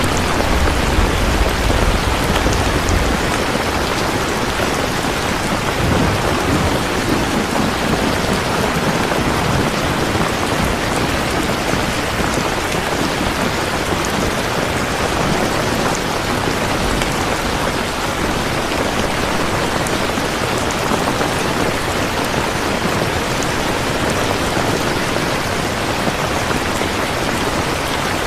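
Steady heavy rain falling and pattering on surfaces, an even hiss with no let-up. A low rumble of distant thunder sits under it during the first three seconds.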